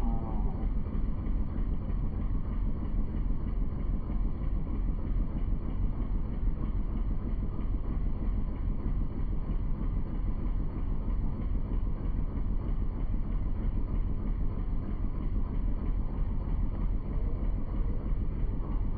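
Boat engine running steadily, with wind rushing over the microphone.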